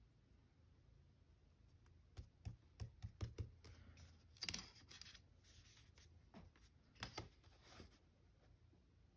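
Faint handling of journal paper and a plastic ruler: a cluster of light taps and clicks about two seconds in, then short rustles of paper at about four and a half and seven seconds.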